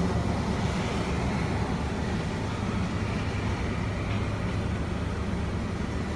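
Scania 94D truck's diesel engine idling steadily at about 500 rpm, heard from inside the cab.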